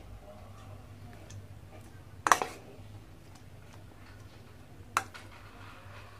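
Metal spoon clinking against a stainless steel bowl while spice-coated fish pieces are stirred. There is one sharp clink about two seconds in and a lighter one near the end, over a faint low hum.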